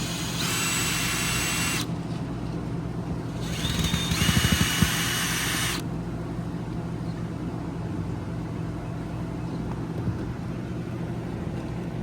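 Cordless power drill running in two bursts of a second or two each, its whine rising as it spins up, with a few knocks during the second burst. It is backing out the screws that hold the old RV roof vent cap.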